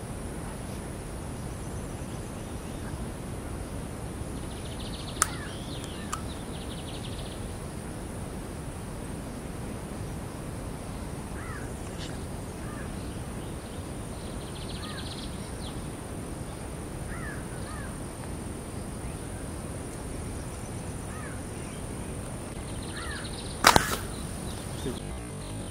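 Quiet outdoor ambience: a steady background hiss with a faint high steady whine, scattered short bird chirps, a small click about five seconds in and a loud sharp crack a couple of seconds before the end.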